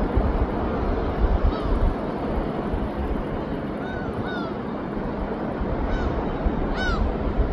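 Steady rumble of surf and wind, over which a bird gives several short rising-and-falling calls, the clearest near the end.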